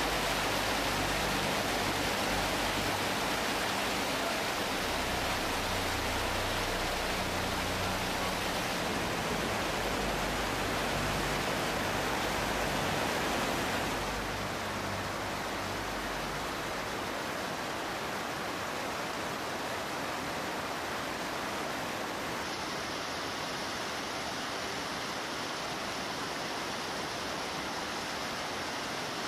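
Rushing white water of an underground cave stream pouring over rocks, a steady, even rush. About halfway through it drops a little in level and loses its deep rumble.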